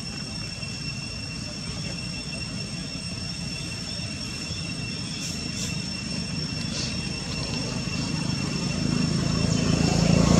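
Steady outdoor background rumble and hiss, growing louder toward the end, with two steady high-pitched tones and a few faint short chirps about halfway through.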